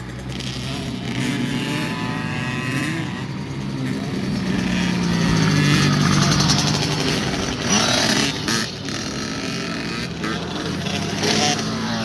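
Small 50cc youth dirt bikes racing on a dirt track, their engines revving up and down as they pass, loudest about halfway through.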